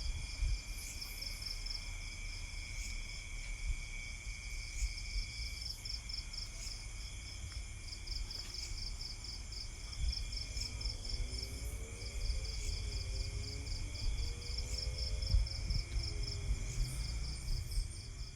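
Insects chirping: a fast, steady pulsing chirp and continuous high trills, over a low rumble.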